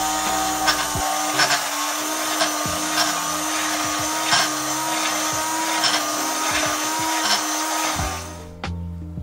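Electric spindle drink mixer running at a steady speed, whipping salad dressing in a tall glass, with scattered clicks over its whir. The motor cuts off about eight seconds in.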